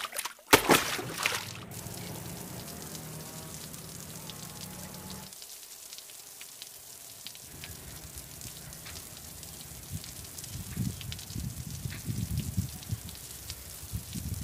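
River water trickling and lapping, with scattered small drips and splashes, over a low steady hum. A brief loud rush of sound comes in the first second or so.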